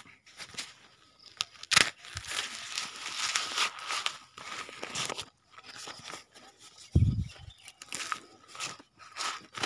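Dry corn leaves and stalks crunching and rustling underfoot in irregular bursts, with a dull low thump about seven seconds in.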